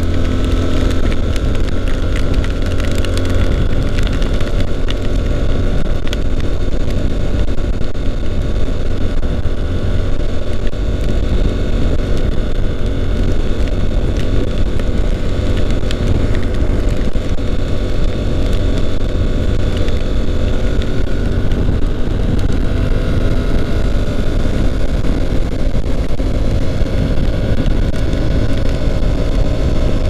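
Honda NC750X's parallel-twin engine running steadily while riding, with heavy wind buffeting on the microphone.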